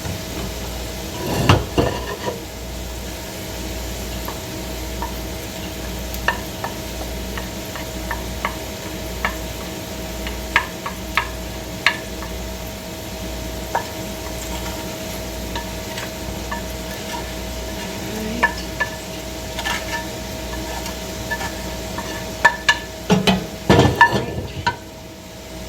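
A spoon stirring and scraping cooked brown rice, scrambled egg and sautéed vegetables together in a large pot of hot coconut oil, with a low sizzle and scattered clinks and knocks against the pot. The knocks come thicker and louder near the end.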